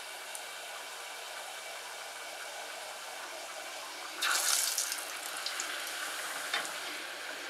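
Oreillette dough frying in hot oil: a steady sizzle that grows louder for about a second a little past halfway, as a wooden spatula pushes the dough through the oil.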